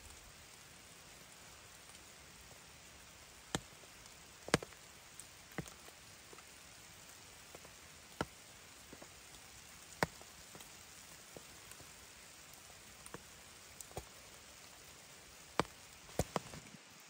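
Sparse raindrops ticking irregularly, about one every second or two, over a soft, steady hiss of light rain.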